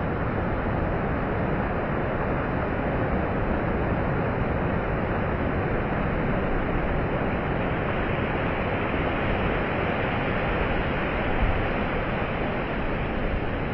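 Ocean surf breaking on a sandy beach: a steady, even rushing wash of waves.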